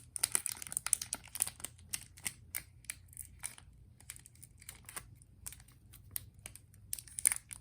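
A small plastic bag crinkling and crackling in quick, irregular snaps as a lighter is slipped into it and the bag is handled. The crackles are busiest in the first two seconds, sparse through the middle, with a short burst again near the end.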